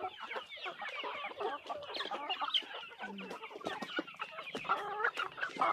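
A flock of hens clucking over feed, many short calls overlapping at once, with scattered sharp clicks among them.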